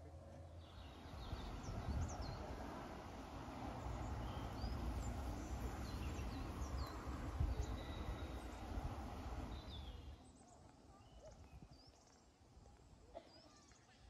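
Wind buffeting the microphone with a low rumble while birds chirp in quick short calls. About ten seconds in it drops away sharply, leaving a quiet outdoor background with a few faint bird calls.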